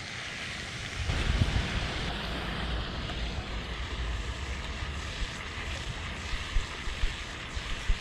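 Wind buffeting the microphone: a low rumble that sets in about a second in, over a steady rushing hiss.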